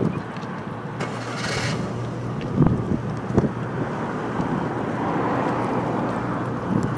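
Jet ski engines running out on the water, a steady drone, with wind buffeting the microphone in several low thumps.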